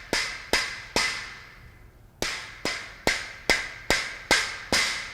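Rubber mallet striking a steel shelving post to drive it down into its post coupler: about eleven steady blows, roughly two a second, each ringing briefly in the metal, with a pause of about a second after the first three.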